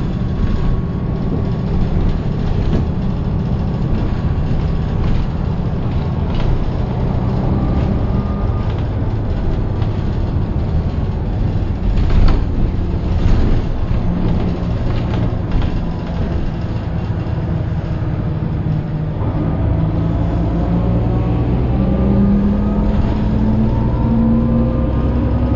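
Interior sound of a MAN 18.310 HOCL-NL bus on the move: its six-cylinder MAN D 2866 diesel runs steadily through the ZF 6HP592 six-speed automatic, with body rattles and a couple of sharp knocks about halfway through. In the last quarter a rising gear whine builds as the bus pulls ahead, typical of the hub-reduction drive axle.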